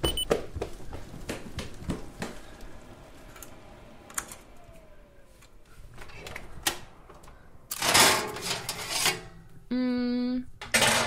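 Kitchen sound effects of a forgotten oven being dealt with in a hurry: a string of clicks and knocks, a loud rush of noise about eight seconds in, and a short buzzing tone near the end.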